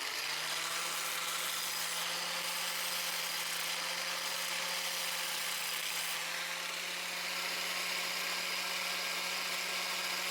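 Electric power tool motor running steadily with a constant low hum and a hiss, as a small sheet-metal patch piece is shaped.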